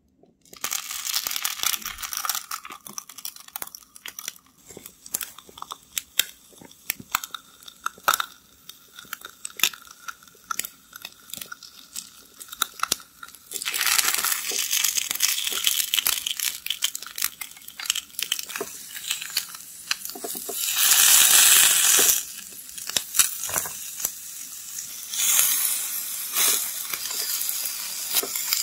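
Eel fillets sizzling on a hot miniature cast-iron griddle, with small clicks of wooden chopsticks on the pan as the pieces are laid down and turned. The sizzle is crackly and quieter at first, grows louder about halfway through, and surges loudest for a second or so later on.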